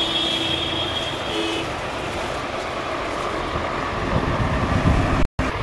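Steady background rumble and hiss of passing street traffic, with a faint steady tone over the first second and a half; the sound cuts out for an instant near the end.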